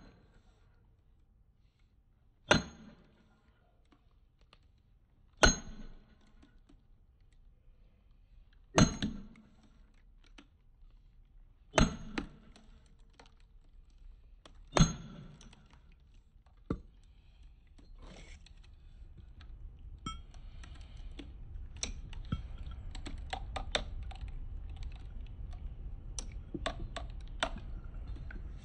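Hammer blows on a steel splitting wedge set in a hickory log: five ringing metal-on-metal strikes about three seconds apart, then a lighter tap. After that comes a long run of small cracks and ticks as the hickory fibres tear and the split opens.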